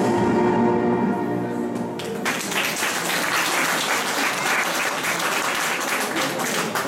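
Music ends abruptly about two seconds in, and an audience applauds for the rest of the time.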